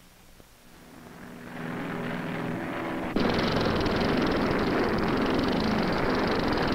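Piston engines of a C-119 propeller cargo plane droning steadily. The sound fades in, then jumps suddenly louder at about three seconds in and holds there.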